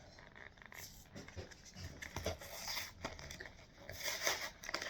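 Packaging being torn and crinkled open by hand: a run of short, irregular rustles and tears, the longest and loudest about four seconds in.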